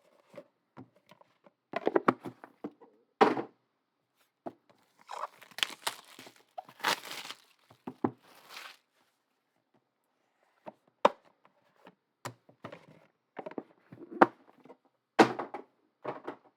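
Trading card packs and cards being handled and opened: scattered taps and knocks of cards and boxes on a table, with a few seconds of crinkling and tearing of pack wrappers around the middle.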